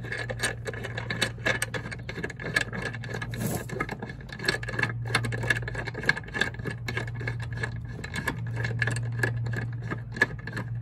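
Ratchet wrench clicking in quick, uneven runs as the clutch puller bolt is backed out of the Gator's drive clutch, over a steady low hum.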